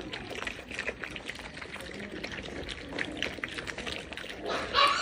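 A litter of Corgi puppies lapping and smacking wet food from one shared bowl: a busy patter of quick, irregular wet clicks and slurps. A brief louder, higher sound comes near the end.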